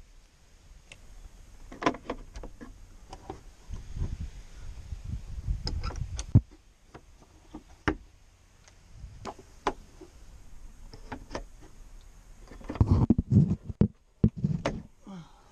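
Hands tucking wiring into the Jeep's interior plastic trim and headliner edge: scattered plastic clicks and knocks with rubbing and low thumps, busiest near the end.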